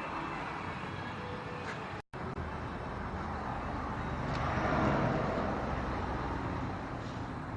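Steady road traffic noise, swelling louder about five seconds in as a vehicle passes. The sound cuts out completely for a moment about two seconds in.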